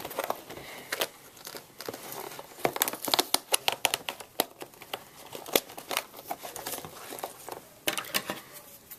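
Stiff clear plastic blister packaging and cardboard crinkling and crackling as hands pull and pry at them, a dense run of irregular sharp clicks.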